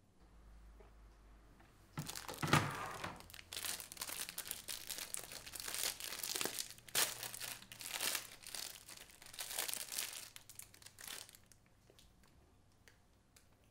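Clear plastic food wrapper crinkling in a long run of irregular rustles as it is pulled open by hand to free a pastry, starting about two seconds in and stopping shortly before the end.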